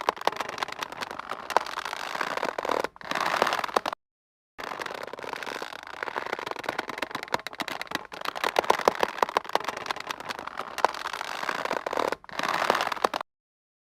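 Taut rope creaking and squeaking under strain, a dense run of tight, rapid creaks. It cuts to dead silence twice: for about half a second some four seconds in, and again near the end.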